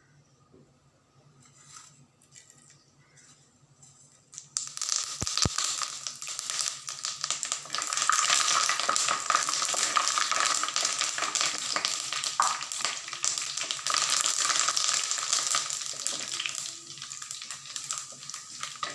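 Hot sesame oil in a pan bursting into loud sizzling and crackling about four seconds in as fennel seeds, cinnamon and curry leaves go in for tempering; the sizzle holds, then eases off near the end.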